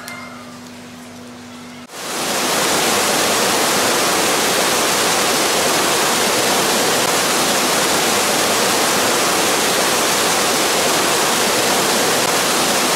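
Loud, steady rush of a waterfall, white water splashing over rocks, cutting in suddenly about two seconds in.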